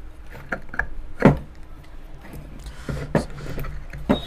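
Scattered metallic clicks and knocks as an air cooler motor's rotor shaft, its rust just sanded off, is worked back and forth out through the bush in the motor's end cover, with one louder knock about a second in.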